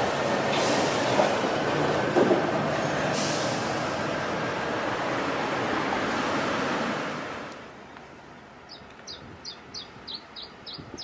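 A heavy vehicle passes close by as an even rushing noise with two short hisses, then fades away. A small bird follows with about eight quick, short chirps, roughly three a second.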